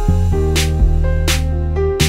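Background music with sustained bass notes and chords, and two sharp drum-like hits.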